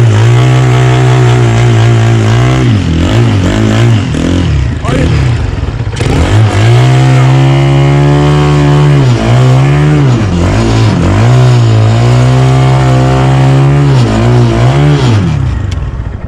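The mini boat's small engine running loud through its unmuffled exhaust at high revs. The revs drop off and climb back several times, then fall away near the end as the throttle is let off.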